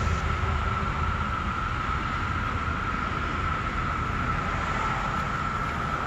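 Chorus of periodical cicadas: many males calling at once, making a steady, unbroken high drone, with a low rumble underneath.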